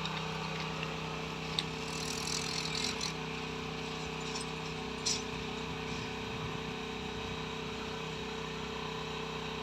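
Engine running steadily at constant speed, with a few sharp metallic clicks and a short hiss about two seconds in, during work to lift a railway coach.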